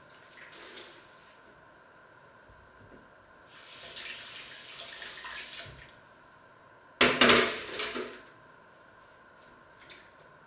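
Dishes being washed by hand in a stainless steel sink. The tap runs for about two seconds, then about seven seconds in comes a sudden, louder burst of water and dish clatter lasting about a second.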